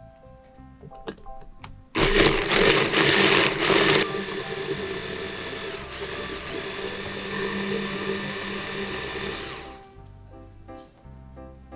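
Hand blender motor on a chopper bowl, blending oil and vegetables into a thick sauce, after a few light clicks. It starts about two seconds in, loudest and roughest for the first two seconds, then runs steadily for about six seconds before cutting off near the end.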